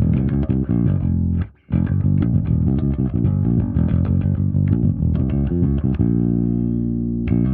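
Electric bass guitar playing a busy line of plucked notes through a modelled Ampeg SVT amp with compression. The notes cut out briefly about a second and a half in, and the line settles into longer held notes near the end.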